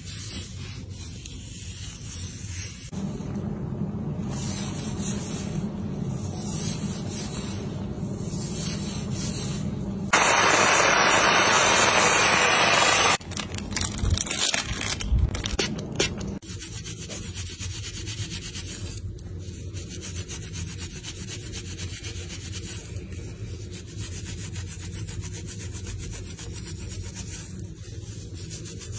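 Scratching and rubbing of a comb and gloved fingers working through hair against the scalp, a steady rasping texture. About ten seconds in, a loud even rush of noise lasts about three seconds. A few seconds of irregular louder rustles and knocks follow before the steady scratching resumes.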